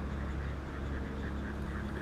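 Faint duck quacks over a steady low rumble.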